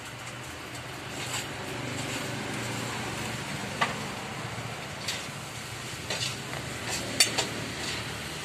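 A kitchen knife scraping and tapping on a wooden chopping block and a plate as sliced meat is pushed off the blade. Several sharp clicks stand out, the loudest about seven seconds in, over a steady background hiss and hum.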